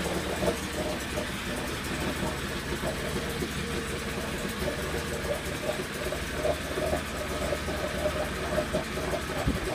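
Vintage Mercury Mark 35A two-stroke outboard motor idling steadily, with an uneven chatter.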